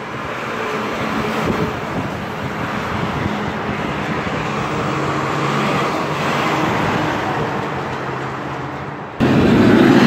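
Street traffic going by close: engines and tyre noise of a tractor-trailer and cars passing, swelling and easing. About nine seconds in, a louder engine cuts in suddenly.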